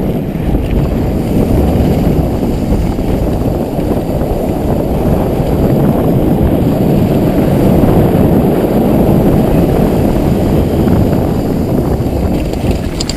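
Downhill mountain bike ridden fast over cobblestones: a loud, steady rumble and rattle of tyres and bike, mixed with wind on the action-camera microphone.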